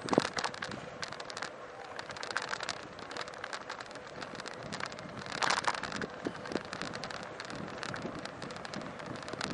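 A bicycle riding over town pavement, heard from a camera mounted on the bike: dense crackling and rattling from road vibration, with wind on the microphone and a faint steady hum. There is a sharp knock right at the start and a louder rattle about five and a half seconds in.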